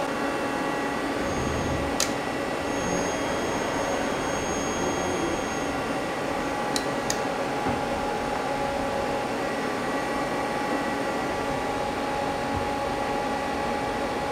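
Mazak CNC lathe running a program: a steady machine hum with several held tones while the turret moves in toward the part. A sharp click comes about two seconds in, and two more clicks follow close together around seven seconds.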